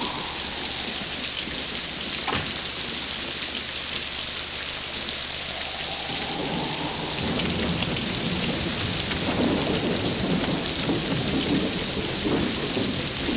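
Steady heavy rain, with thunder rumbling more strongly in the second half.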